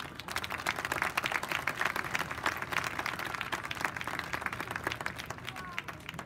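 Crowd in the stands applauding, building within the first second and tapering off near the end.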